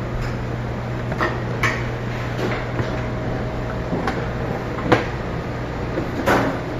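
Scattered knocks and clatter of kitchen items, such as dishes, pans or a cupboard door, about five separate hits with the loudest about five seconds in, over a steady low hum.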